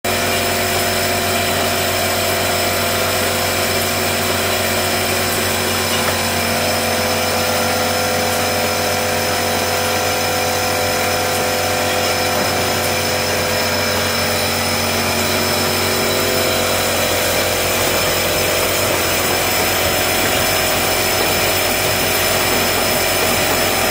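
Wine bottling line running: the rotary filler, screw-capper and bottle conveyor give a steady machine drone with several constant tones, unchanging throughout.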